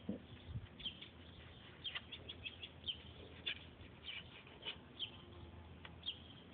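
Small birds chirping faintly in short, quick calls, several a second, over a low steady hum.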